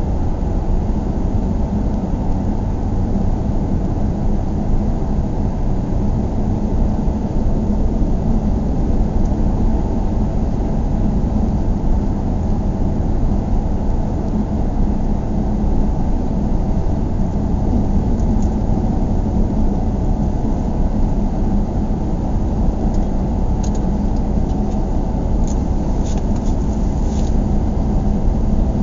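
A car being driven at a steady pace, heard from inside the cabin: an even low rumble of tyres and engine with a steady hum under it. A few faint clicks come near the end.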